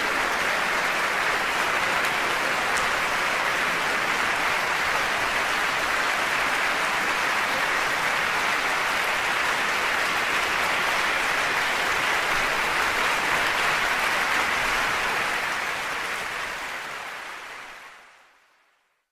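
Sustained applause, a steady dense clapping that fades out over the last few seconds.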